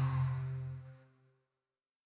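Final held chord of a dark ambient track: several low sustained tones fading out, dying away about a second in.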